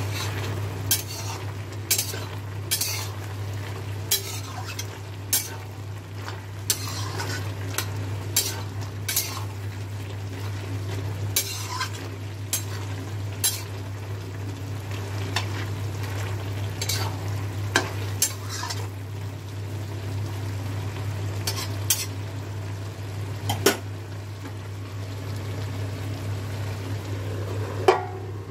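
Flat metal spatula stirring Malabar spinach and potatoes in a steel wok, scraping and clinking against the pan about once or twice a second over a steady low hum. Near the end a steel lid clanks onto the wok with a brief ring, the loudest sound here.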